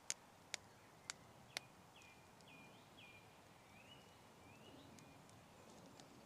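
Faint woodland ambience: four short sharp clicks about half a second apart, then a bird's thin whistled notes, some sliding down and some up.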